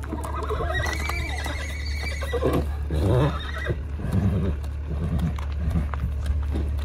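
A horse whinnies, a wavering high call lasting about three seconds, followed by its hooves stepping on gravel.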